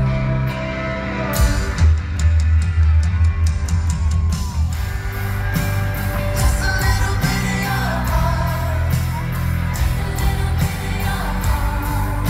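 Live pop-rock band playing: drums with steady cymbal strokes, bass and electric guitar under a male lead singer, with audience voices singing along. The bass and drums come in strongly about two seconds in.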